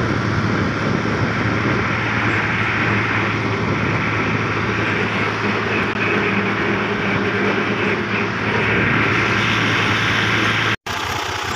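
Fiat tractor's diesel engine running steadily under way on the road, a constant low hum with no change in pitch. The sound cuts off abruptly for an instant near the end.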